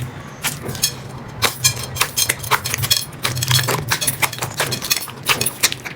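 Slime being pressed and squished, giving rapid, irregular crackling and popping clicks.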